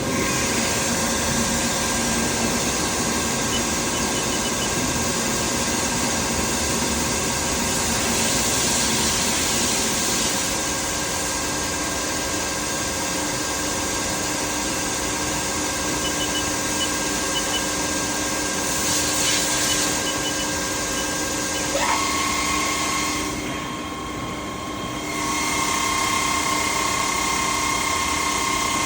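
Haas ST-30SSY CNC lathe running, a steady whine of several tones that steps up in pitch about three-quarters of the way through. There are short bursts of hiss twice, and the sound briefly drops in level soon after the pitch change.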